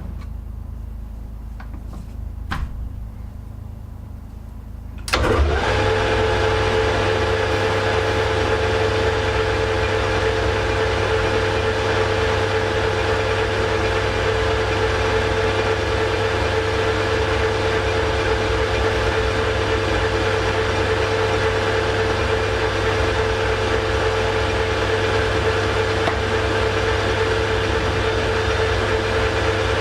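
A couple of clicks, then a metal lathe switched on about five seconds in; its motor and drive run steadily with a constant whine.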